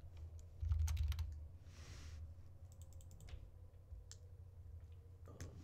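Computer keyboard typing: short clusters of keystrokes with a few single clicks in between.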